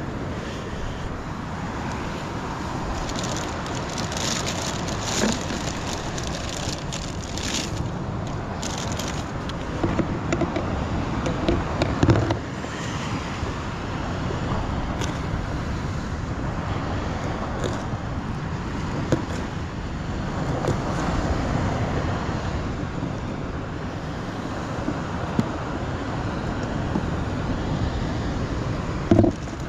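Surf washing onto the beach with wind buffeting the microphone, a steady rushing noise. A scattering of small clicks and a couple of knocks from handling gear, the sharpest about twelve seconds in.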